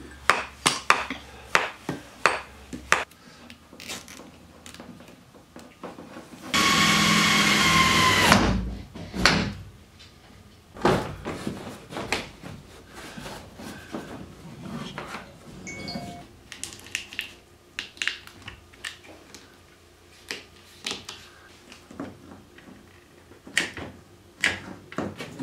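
Hammers tapping on a metal can in quick sharp knocks for the first few seconds. About six seconds in, a power tool runs for about two seconds, the loudest sound, followed by scattered small clicks and knocks of handling.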